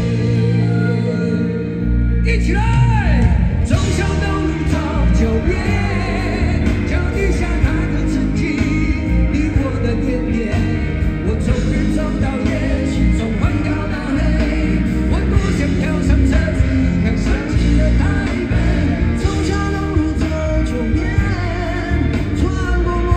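Live rock band playing a power ballad, with electric and acoustic guitars and male singing, as heard from the audience at a concert.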